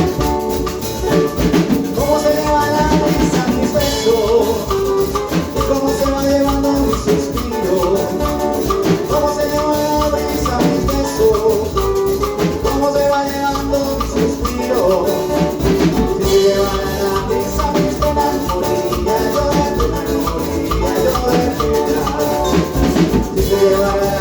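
Instrumental break of a Latin American tropical song: melodic instruments over drums and percussion, with little or no singing.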